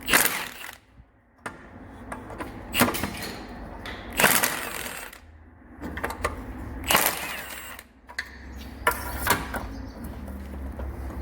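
Workshop tool work on a car's rear axle: a string of separate knocks and clanks, about six, spread irregularly over a low steady hum.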